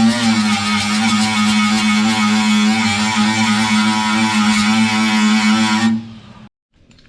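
Music with a sustained electric guitar tone, cutting off abruptly about six seconds in.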